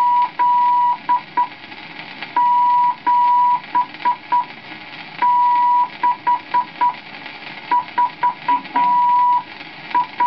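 Morse code from an HMV instruction record playing on a gramophone: one steady tone keyed in dashes and dots, with even spacing between the letters. It sends the end of the figure 8, then 7, 6 and 4, and the first dots of 5 near the end. Faint record surface clicks sound between the tones.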